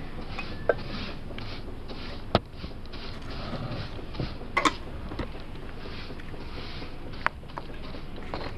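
Metal paint tins and their lids being handled: a few sharp clinks, one a ringing double knock near the middle, over a steady hiss.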